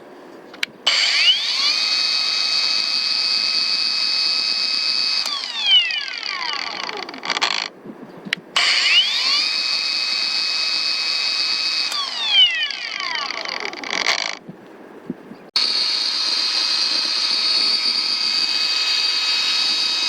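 Kobalt 24-volt Max brushless 5-inch cordless angle grinder running free with no load, three times over. Each time the motor winds up quickly to a steady high whine, runs for about four seconds, then whines down as it coasts to a stop after the switch is released, with a brief burst between the first two runs.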